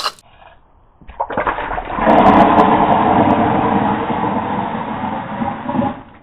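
Liquid gushing and pouring steadily for about five seconds, starting about a second in.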